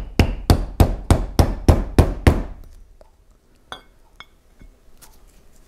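A small two-headed hammer tapping a socket that drives a 20×30×7 oil seal into the bore of a snowblower's auger wormcase, about eight quick, even taps, roughly three a second, that stop a little over two seconds in, followed by a couple of faint clicks. The taps are seating the seal to its recessed depth, past where the seal driver bottomed out.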